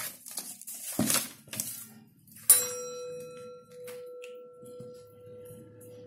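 Paper rustling and crinkling as hands press gold wrapping paper onto a cardboard tube, then about two and a half seconds in a sudden bell-like chime whose upper ringing fades while one clear tone holds on.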